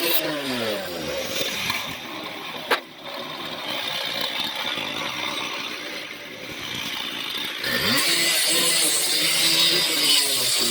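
Small gas engine winding down from high revs to a lower idle, with a single sharp knock about three seconds in, then revving back up near the end.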